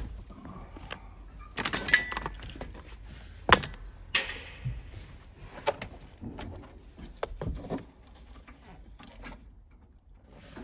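Hand tools clinking and knocking on the sheet-metal casing of a car's hybrid battery pack as it is worked loose: a run of separate clicks and knocks with handling rustle between them, one sharp knock standing out about three and a half seconds in.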